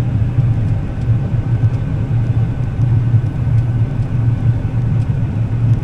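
Combine harvester running steadily while cutting wheat: a constant low drone of engine and machinery with a faint steady whine above it.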